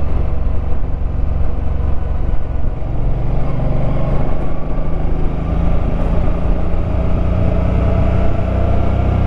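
Suzuki Boulevard M50's 805 cc V-twin engine running while the motorcycle is ridden uphill. The engine note strengthens about three seconds in and then holds steady, rising slowly in pitch.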